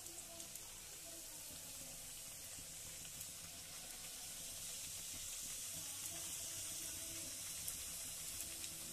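Golgappa puris deep-frying in hot oil in a karahi: a steady sizzle with small crackling pops, getting a little louder over the second half.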